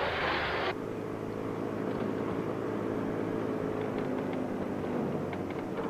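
A short hiss, then a steady, even engine hum that holds without change.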